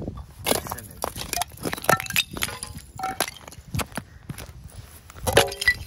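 Shards of broken lake ice clinking and cracking against clear ice: a rapid, uneven series of sharp hits, several of them ringing briefly.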